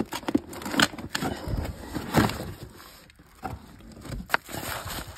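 Suspension parts being handled in a box: a run of irregular knocks, clicks and rustling as the pieces are moved about.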